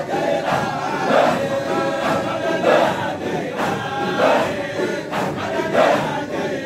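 Crowd of men chanting dhikr together, their voices running on continuously with a loud accented call about every second and a half.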